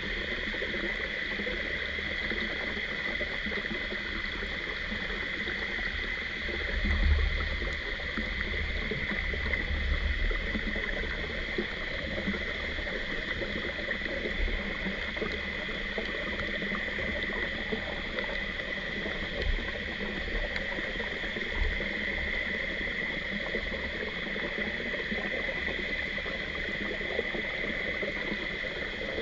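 Mountain stream running steadily, with a few low bumps about seven to ten seconds in.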